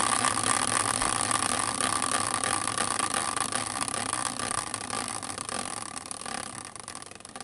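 Prize wheel spinning, its pointer rattling over the pegs in a fast run of clicks that thins out into separate, slower clicks and fades as the wheel coasts to a stop near the end.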